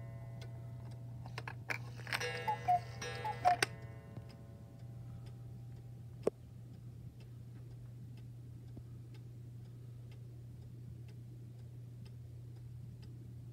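German 7-day mechanical cuckoo clock calling twice, set off by the minute hand being turned to the hour: each call is the two-note cuckoo, high then low, with ringing that fades out about four seconds in. After a single sharp click, the movement ticks steadily.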